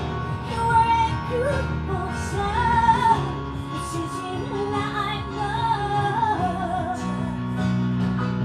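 A woman singing live with her own Roland stage keyboard accompaniment, sung phrases over sustained keyboard chords.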